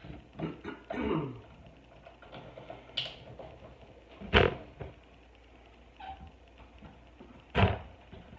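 A few scattered knocks and thumps of kitchen items being handled and set down, with two louder thumps, the first about four and a half seconds in and the second near the end.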